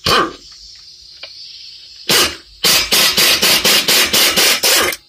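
Impact wrench running in bursts: a short burst at the start, another about two seconds in, then about two seconds of steady hammering. It is driving an 18 mm deep socket on a universal joint to break loose the nut on the lower ball joint stud.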